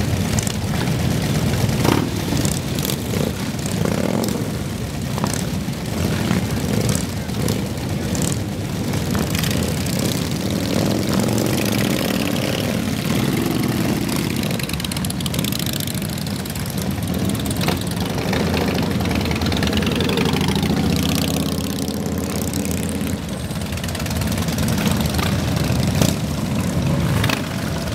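Several motorcycle engines running together in a steady, continuous rumble, with a rise and fall in pitch about twenty seconds in.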